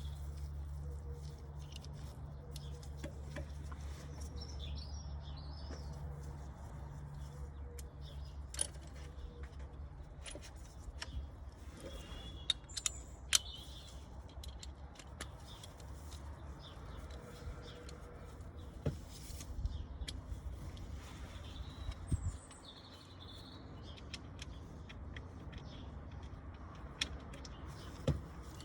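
A car engine idles with a low, steady rumble that weakens about ten seconds in, while birds chirp and a few sharp clicks sound.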